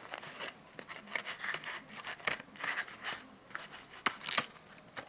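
A small cardboard box holding a micro USB cable being opened and handled by hand: irregular rustling and scraping of the packaging, with scattered sharp clicks, a few sharper ones about two seconds in and around four seconds in.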